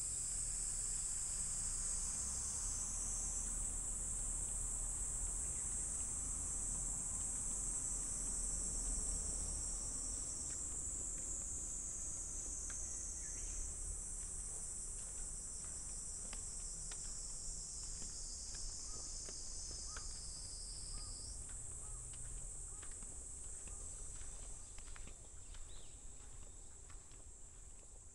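A steady, high-pitched chorus of insects shrilling in the surrounding trees, shifting slightly in pitch now and then. Faint footsteps on the path can be heard from about halfway through.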